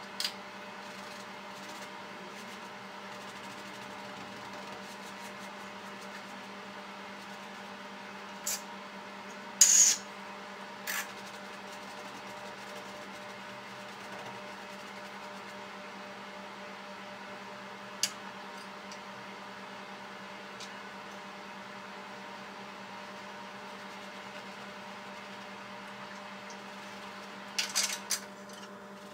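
Steady room hum of a machine or appliance, broken by a few short clicks and taps. The loudest is a brief scrape about ten seconds in, and there is a quick cluster near the end.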